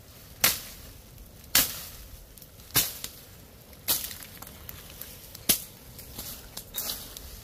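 Chopping blows of a hand blade cutting into brush: five sharp strokes about a second apart, then a few lighter strikes near the end.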